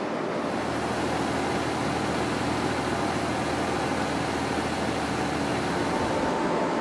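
Steady machinery noise: a low engine hum under a broad rushing noise. About six seconds in, the hum drops away and a steady higher tone takes over.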